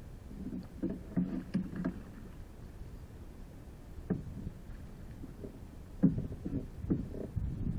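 Dull knocks and creaks from a Hobie PA12 plastic fishing kayak's hull and fittings as the angler shifts his weight, carried through a camera mounted on the kayak. A cluster of knocks comes about a second in, a single knock near four seconds, and another cluster from about six seconds, the loudest of them there.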